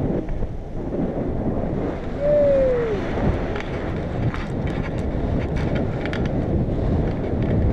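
Airflow buffeting the camera's microphone during paraglider flight: a steady, heavy wind rumble. About two seconds in, a short tone falls in pitch and fades.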